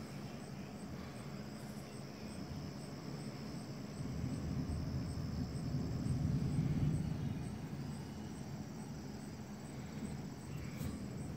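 Steady chirring of crickets at dusk, with a low rumble underneath that swells in the middle and eases off again.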